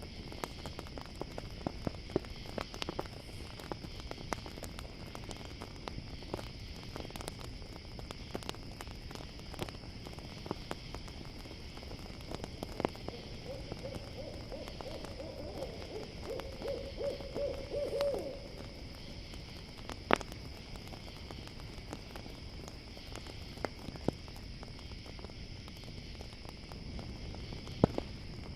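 An owl calls around the middle: a run of rapid, quavering notes lasting about five seconds. Under it, a campfire crackles with scattered sharp pops, over a steady chorus of crickets.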